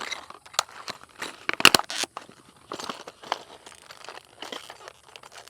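Packaging crinkling and tearing, with irregular rustles and sharp clicks, loudest about a second and a half in.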